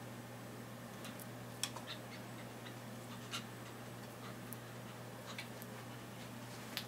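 About nine light, irregular clicks and taps from a kitten playing on a wooden stool with a feather wand toy, over a steady low hum.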